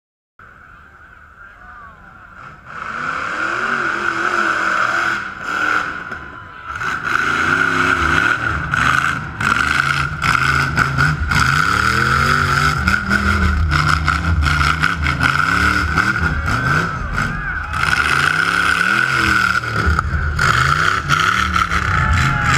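Rock bouncer buggy's engine revving hard in repeated rising and falling bursts as it climbs a steep dirt hill. It grows loud a few seconds in, with a steady high-pitched whine underneath.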